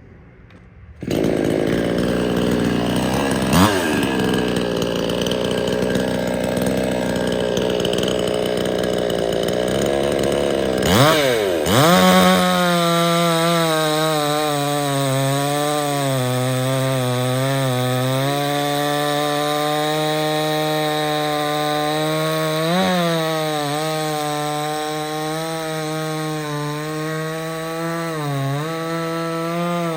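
58cc two-stroke chainsaw opening up to full throttle about a second in and sawing through a log under heavy pressure. The engine pitch dips briefly a few times as the cut loads it.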